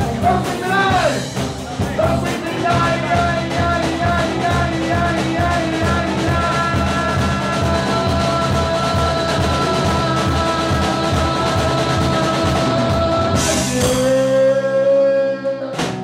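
Live rock band playing: electric guitars and bass over a steady drum-kit beat, with bent guitar notes at the start and a long held note through the middle. A cymbal crash and a final held chord come near the end as the song finishes.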